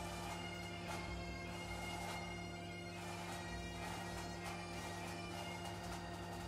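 Bagpipe music playing quietly in the background: steady drones under a chanter melody.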